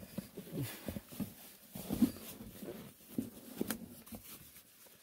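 Faint angler handling sounds at a night fishing spot: scattered rustles and small knocks, with a few short low grunts or breaths.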